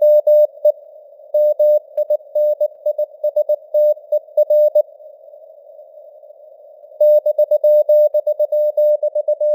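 Morse code sent at 19 words per minute as an on-off tone of about 600 Hz, over a narrow hiss of simulated radio noise. The keying stops for about two seconds around the middle, leaving only the noise, then resumes.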